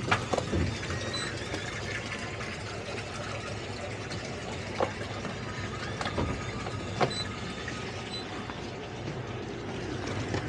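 Boat engine idling steadily, with water sloshing against the hulls and a few sharp knocks along the way.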